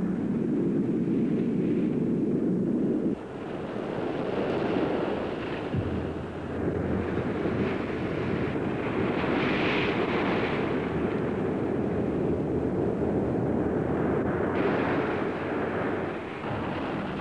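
Steady roar of surf and hissing steam where molten lava pours into the ocean. The noise drops abruptly about three seconds in and changes again near the end.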